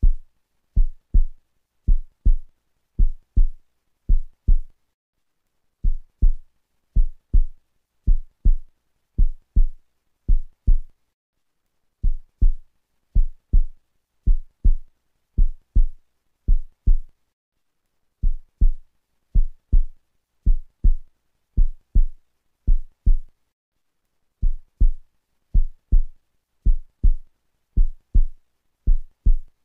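Heartbeat sound effect: pairs of short low thuds, lub-dub, about one pair a second, with a short break every six seconds or so.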